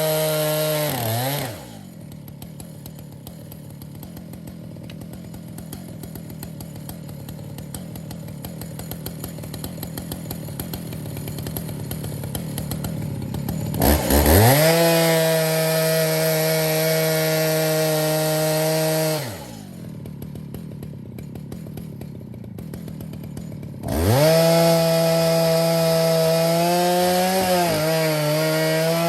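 Stihl chainsaw on an Alaskan mill, ripping the top slab off a cedar log at full throttle. Twice the throttle is let off and it drops to a ticking idle, about two seconds in and again a little past halfway, and it revs back up into the cut each time.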